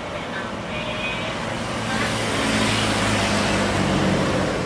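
Twin-engine jet airliner at takeoff thrust, a steady jet-engine roar that grows louder about two seconds in as the aircraft lifts off, with a low engine hum beneath it.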